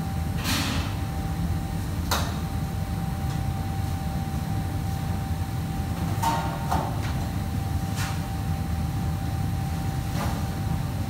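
Commercial kitchen ambience: a steady low rumble of running kitchen equipment with a faint steady whine above it, broken by short clatters of utensils and dishes, a few of them together around six to seven seconds in.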